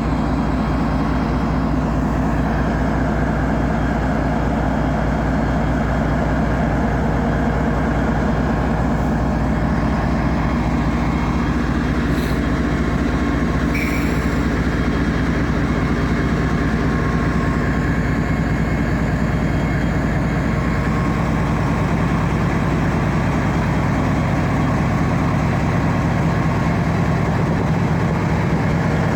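A Canadian Pacific train passing close by: the diesel locomotive runs steadily under the rolling of the cars on the rails. There are a couple of brief high squeaks about halfway through.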